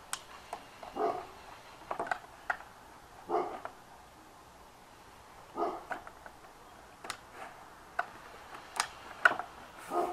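Aviation tin snips cutting vinyl siding: several sharp separate snips, the loudest near the end. A dog barks a few times in between.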